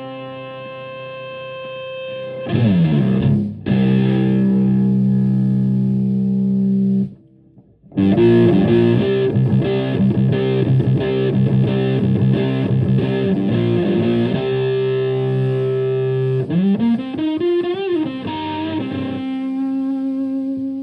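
Electric guitar through a germanium three-transistor fuzz pedal modelled on the Tone Bender MKII, into a Marshall Plexi amp. A held, fading note, then struck chords that ring and stop about seven seconds in; after a brief pause comes a fast run of picked notes, a held note bent upward with vibrato, and a final sustained note.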